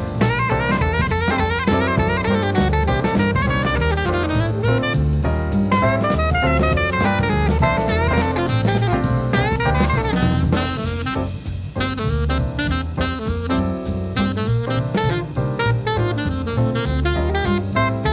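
Jazz music: a saxophone playing quick melodic runs over a walking bass line and a drum kit.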